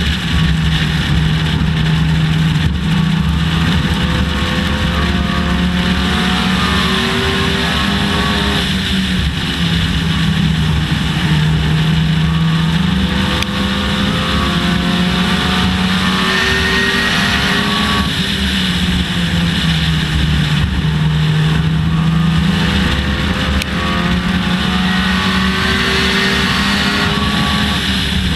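Dodge Neon race car's four-cylinder engine at racing speed, heard on board: the revs climb steadily and then drop off, three times about nine seconds apart, over a constant wash of road and wind noise.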